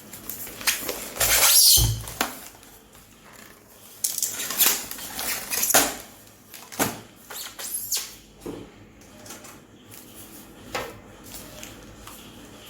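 Adhesive tape being pulled off and styrofoam packing being handled as an amplifier is unpacked: a loud noisy rasp about a second and a half in, then scattered scrapes, squeaks and knocks.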